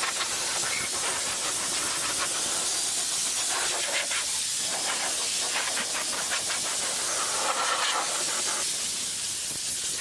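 Compressed-air blow gun on a compressor hose blasting air in one long, continuous hiss.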